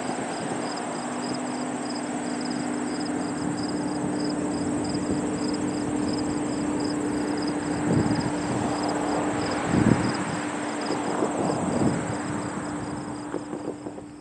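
Freight train of covered hopper cars rolling away over the rails: a steady rumble with a low hum and a few knocks, fading near the end. Insects chirp in quick, even pulses.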